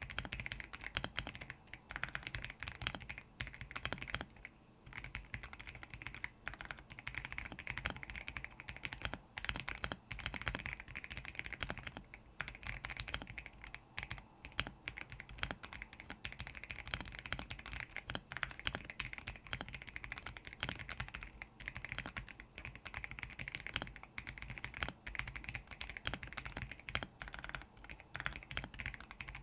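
Typing on a Royal Kludge R75 mechanical keyboard fitted with lubed RK Brown tactile switches: fast, continuous keystrokes, with a brief pause about four and a half seconds in.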